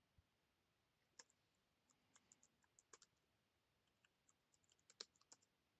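Faint, scattered clicks of keys on a computer keyboard, with a mouse click or two, as a command is typed at a terminal.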